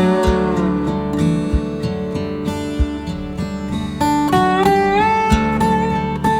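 Background music: plucked guitar with sliding notes over a slow, steady beat.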